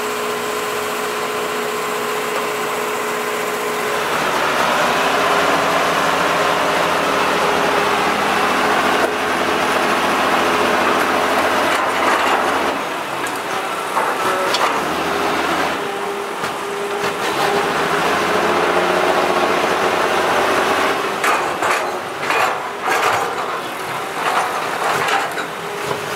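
Six-wheel dump truck's diesel engine revving hard under load as the truck struggles to drive out of deep mud with its wheels spinning. The engine rises about four seconds in, then surges up and down unevenly, with some sharp knocks in the second half.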